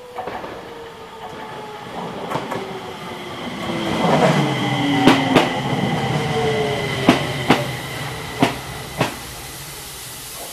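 Enshu Railway electric train no. 2008 pulling into a platform: its motor tones glide downward as it brakes, over a steady high whine. The wheels clack over a rail joint in pairs, three times, the pairs spreading apart as the train slows.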